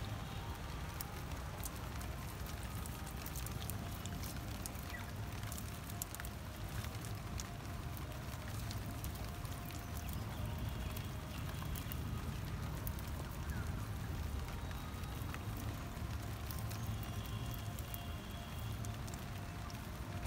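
A wet nylon cast net being pulled and shaken over mud and a catch of small fish, making scattered light crackles and patters over a steady low rumble.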